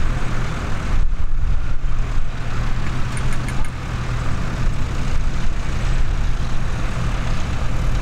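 Tractor diesel engine idling steadily while the tractor stands still with its plough, with a few faint light clinks about three seconds in.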